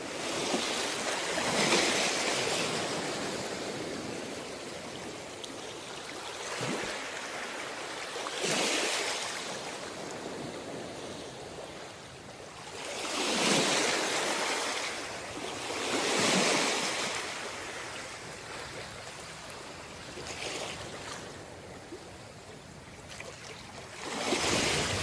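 Sea waves breaking and washing up on a beach: a steady hiss of surf, with a louder wave surging in and falling away every few seconds, about six times.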